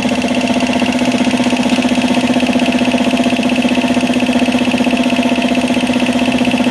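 Elgi 5 hp two-cylinder reciprocating air compressor and its electric motor running steadily, the pump pulsing in a rapid, even rhythm as it pumps air into the tank.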